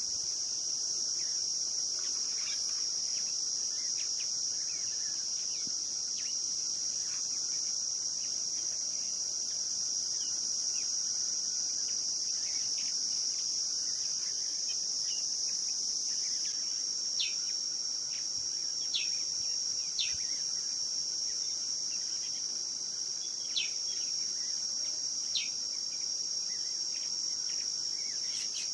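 Steady, high-pitched insect chorus from the surrounding desert scrub. In the second half, about half a dozen short, sharp chirps stand out above it.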